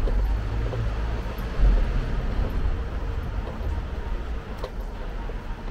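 Street ambience dominated by the low rumble of a heavy vehicle passing close by, loudest a little under two seconds in, with a faint steady hum and a few small clicks over it.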